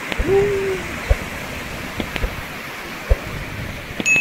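Steady rush of a creek in flood after heavy rain, with a few low thumps on the microphone. Subscribe-button sound effects sit on top: a short tone near the start and a high, clear ding near the end.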